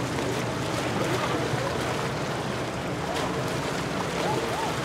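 Steady on-the-water ambience: a constant wash of water and wind noise with a low, steady boat-engine hum underneath, and faint distant voices wavering in near the end.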